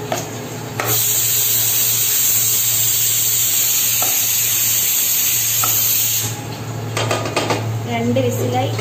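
Sliced onions sizzling as they fry in oil in a pot while being stirred with a steel spoon. The sizzle stops abruptly about six seconds in, followed by a few light metal clinks as the pot lid goes back on.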